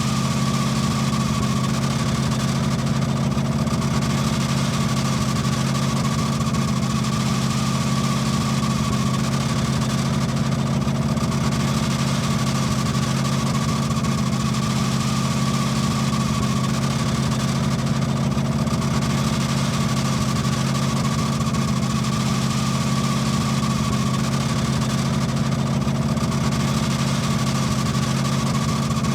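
Car engine idling steadily with a continuous high squeal over the engine note, which the uploader puts down to the drive belt.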